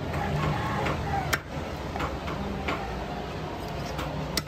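Meat cleaver chopping through country chicken on a wooden chopping block: a few sharp chops, the loudest about a second and a half in, over a steady low hum.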